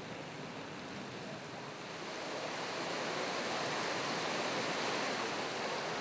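Steady rush and splash of swimming-pool water, growing a little louder about two seconds in.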